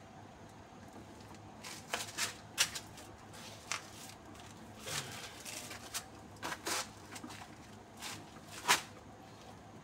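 Dry coconut husk pieces rustling and scraping as they are handled and set into a plastic basin, in a string of short bursts, the loudest near the end.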